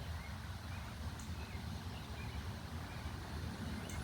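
Breeze rumbling low and steadily on the microphone outdoors, with faint short high chirps scattered through it.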